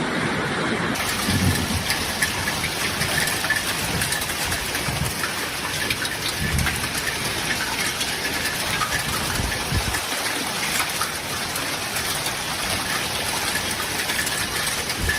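Heavy rain pouring down in a steady, dense hiss of drops, with a few short low rumbles.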